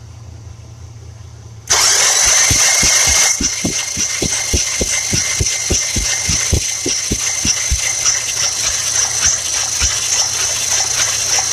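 Starter motor cranking a 1966 Buick Riviera's nailhead V8, which does not catch. The cranking starts suddenly about two seconds in as a steady whine, with an even low thump about four times a second for the first several seconds.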